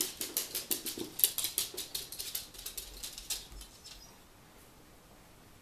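A small dog's claws clicking rapidly on a hardwood floor as it prances about, the clicking stopping about three and a half seconds in when it sits down.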